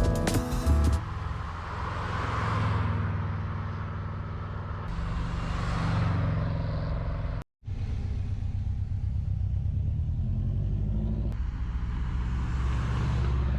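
Subaru GC8 WRX Type RA's turbocharged flat-four engine running as the car drives on the road, its note swelling and easing off a few times, with an abrupt cut in the sound about halfway through.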